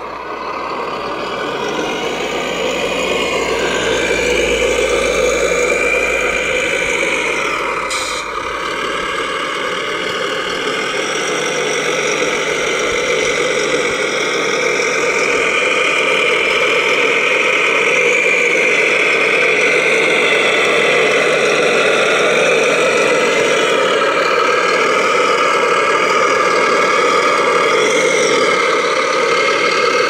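Radio-controlled scale model trucks running steadily with an engine-like sound, its pitch shifting slightly as they move. One sharp click comes about eight seconds in.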